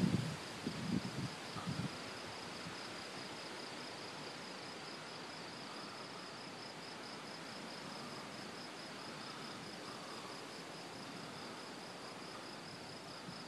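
Crickets chirping in a steady, fast-pulsing trill over a soft background hiss. A few low thumps sound in the first two seconds.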